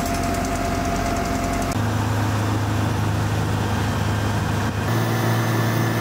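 Mobile crane's engine running steadily as it holds a lifted load. Its tone changes abruptly about two seconds in and again near five seconds.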